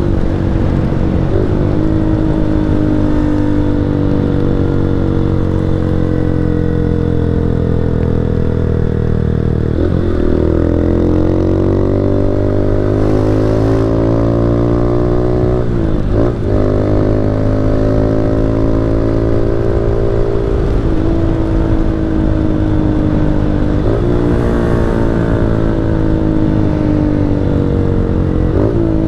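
Motorcycle engine running under way, heard from the rider's position, its pitch sinking slowly and then climbing again, with several brief breaks where the pitch jumps, near 10 s and 16 s among others.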